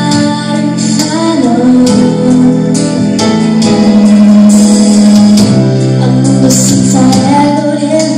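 A female singer singing an Italian pop ballad solo into a microphone over instrumental accompaniment, holding a long note midway.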